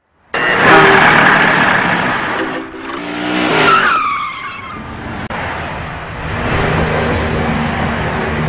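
Car tyres skidding and screeching under hard braking as cars pile into a collision. The sound starts suddenly and loudly, a squeal falls in pitch about four seconds in, and then a steadier rushing noise follows.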